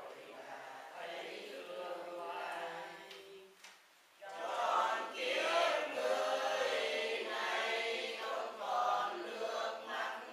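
A group of voices chanting together in unison without instruments, pausing briefly just before four seconds in, then going on louder.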